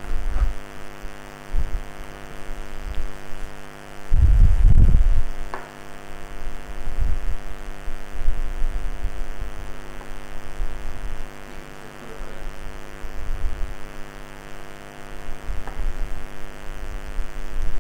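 Steady electrical hum made of many evenly spaced tones, with irregular low thumps and rumbles from movement close to the microphone; the loudest rumble comes about four seconds in.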